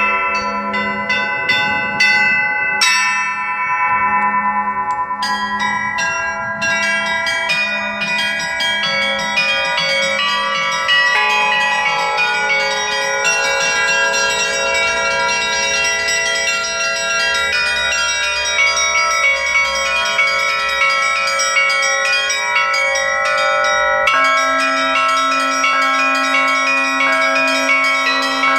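A set of Russian Orthodox church bells cast by the LITEX foundry, rung together in the traditional Russian style: rapid strikes on the small bells over the middle and larger bells, building into a dense, sustained ringing. A lower bell note comes in near the end.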